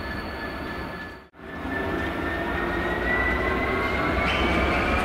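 DB Cargo Class 66 diesel-electric locomotive, with its two-stroke V12 engine, rumbling low as it approaches hauling freight wagons. A high whine rises slowly in pitch. The sound drops out briefly a little over a second in.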